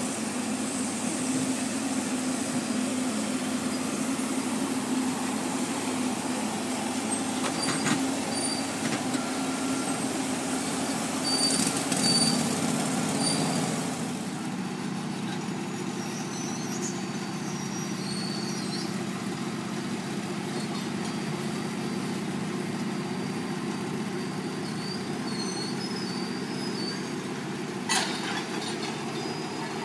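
Diesel engines of heavy equipment running steadily: a Caterpillar backhoe loader, then a rail-mounted track machine. The engine note drops and gets a little quieter about halfway through, with a few short metallic knocks.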